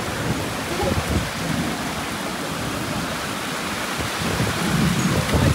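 Heavy rain pouring down steadily in a thunderstorm.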